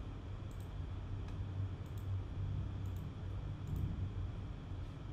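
Steady low background hum with a few faint, scattered clicks.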